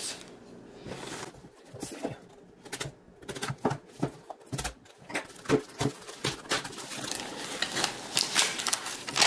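Cardboard shipping box being handled and opened by hand: irregular clicks, taps and scrapes of the cardboard and its flaps, coming thicker in the second half.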